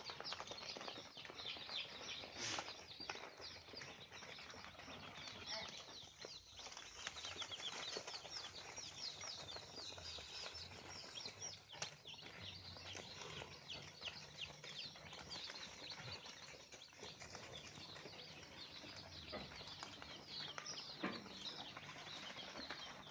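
A flock of chickens in a pen: many birds chirping and peeping over one another without pause, with wing flapping and scattered clucks.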